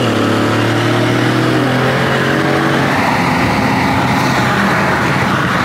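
Car engine droning while driving, heard from inside the cabin, its pitch slowly falling, then fading about three seconds in under steady road and wind noise.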